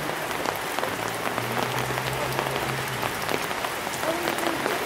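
Steady rain falling, with many separate drops ticking. A low steady hum runs for about two seconds around the middle.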